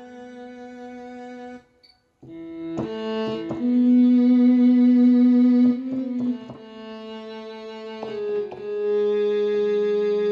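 Yamaha MODX6 synthesizer playing a solo string voice: slow held notes that change pitch every second or two, with a short break about two seconds in.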